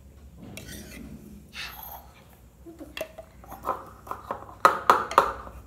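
Batter-filled stainless steel tumblers knocked down on a hard floor, a run of sharp metallic knocks with the loudest three close together near the end, tapping to settle the chocolate cake batter level. Before them, a softer scraping of a whisk against a steel bowl.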